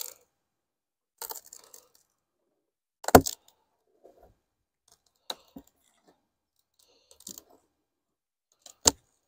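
Scattered handling clicks and knocks, about six in all, the loudest about three seconds in, from working the open wooden beehive's boxes and frames.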